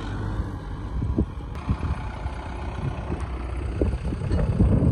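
Kubota tractor's diesel engine running steadily with a low rumble, with a few short knocks.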